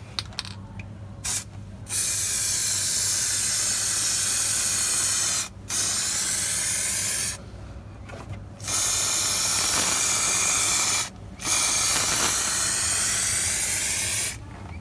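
Aerosol can of clear rust-proofing coating spraying onto a steel chassis rail. There is a short puff about a second in, then four long steady hisses of a few seconds each, with brief pauses between them.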